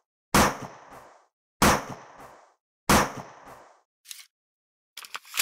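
Gunshot sound effects: three sharp shots about 1.3 s apart, each ringing off and followed by a shorter click. A few light clicks come near the end.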